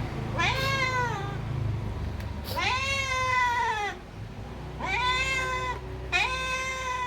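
Domestic cat meowing four times in a row, insistent drawn-out meows that rise and then fall in pitch, the second the longest; a hungry cat begging for food. A low steady hum runs underneath.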